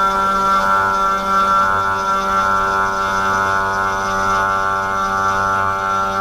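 A 500 W spindle on a 3018 desktop CNC router running steadily while its end mill cuts a slot through a wooden board, a steady multi-toned whine and hum.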